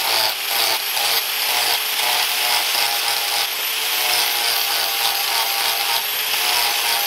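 Angle grinder running steadily with a high motor whine, its abrasive disc grinding against a round wooden knife handle to shape and smooth it.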